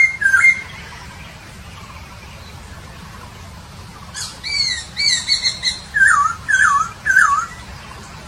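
Poksay Papua songbird singing clear whistled notes: a short phrase at the start, then from about four seconds a run of down-slurred whistles ending in three lower swooping notes.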